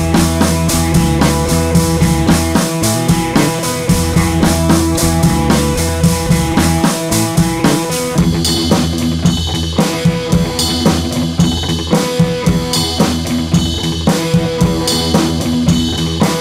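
Dance music with a fast, driving drum-kit beat over sustained instrumental tones. About eight seconds in, the arrangement changes: the deep bass thins out and brighter, higher percussion comes in.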